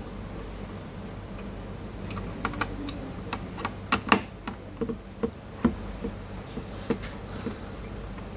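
Irregular light clicks and taps of small computer parts being handled and fitted, starting about two seconds in, the sharpest one near the middle, over a steady low hum.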